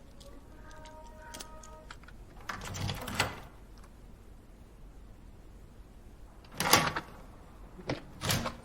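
A metal safe-deposit box being handled: a scraping slide about two and a half seconds in, then a sharp clatter, a click and a shorter scrape near the end.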